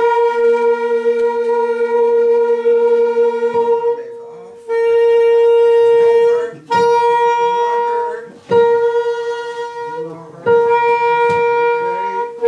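Wind instrument being tuned: about five long held notes on the same pitch, each a second or more, with short breaks between them. A lower second note sounds under the first hold.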